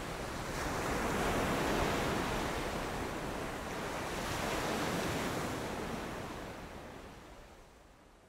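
A rushing wash of noise that swells twice and fades away near the end.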